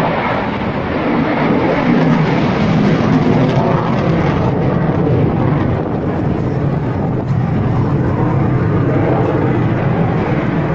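Belgian Air Component F-16A MLU fighter jet, its single F100 turbofan engine heard from the ground as the jet climbs and pulls through a loop: a loud, steady rushing jet noise that swells slightly about two seconds in.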